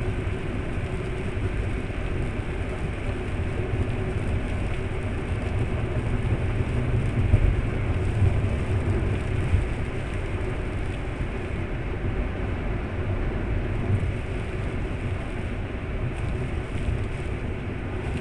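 Car driving on a rain-wet road, a steady mix of engine hum and tyre noise heard from inside the cabin through a dashcam's built-in microphone.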